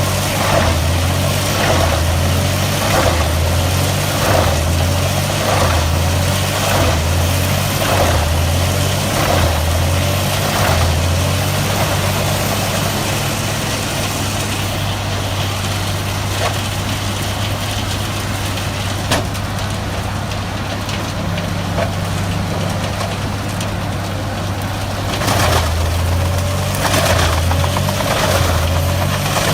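Large wood chipper's diesel engine running loud and steady, with a rhythmic pulsing about once a second through the first ten seconds and again near the end, evener in between.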